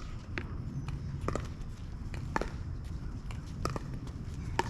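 Pickleball rally: paddles striking the plastic ball in about five sharp pops roughly a second apart, over a low steady rumble.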